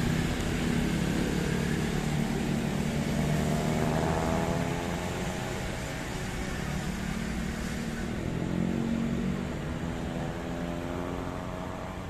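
Minibus engine running under load, its pitch rising about four seconds in and again about eight seconds in.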